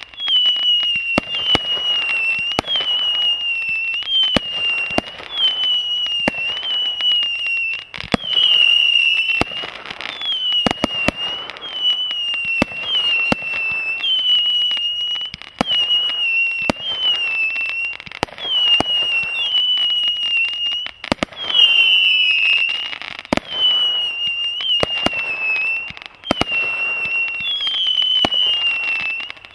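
Brothers Pyrotechnics 'Fire One' firework cake firing shot after shot, about one a second. Each shot gives a high whistle that rises briefly and then sags slightly, along with sharp pops from launches and breaks.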